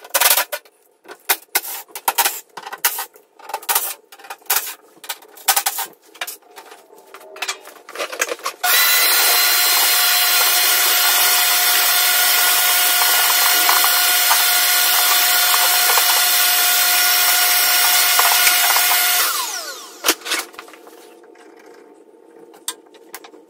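Short bursts and clattering as a cordless drill/driver works the screws of a table saw cover. Then a small electric motor starts suddenly, runs steadily with a high whine for about ten seconds, and winds down with falling pitch.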